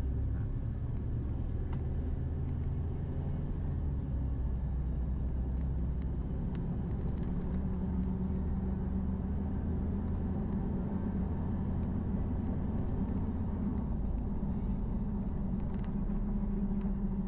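Steady low rumble of a car's engine and tyre noise while driving at a steady speed, heard from inside the cabin.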